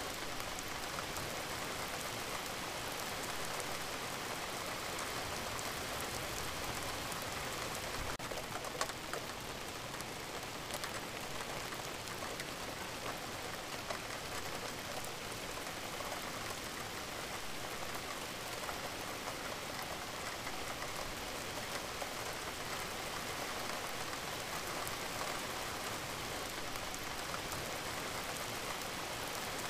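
Steady rain, an even hiss of falling rain on a surface, with a few brief louder ticks of drops, the sharpest about nine seconds in.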